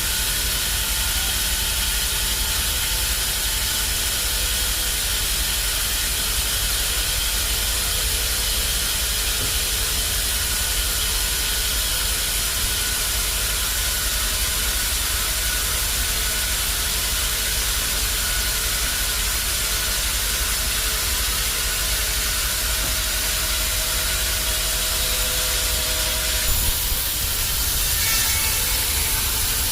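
Band sawmill running: a steady, hissing machine noise with faint whining tones. It changes briefly about 26 seconds in, with a couple of small bumps in loudness.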